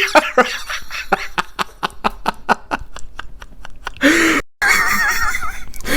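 Man wheezing with laughter: a run of rapid, breathy, squeaky gasps for about three seconds. About four seconds in comes a louder burst that cuts off abruptly, followed by more noisy, wavering sound.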